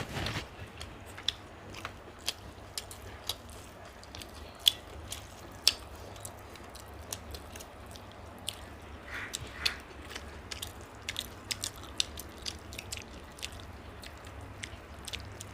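Close-up eating sounds of mutton biryani being chewed: irregular sharp, wet clicks and smacks of mouths working, several a second at times. A steady low hum runs underneath.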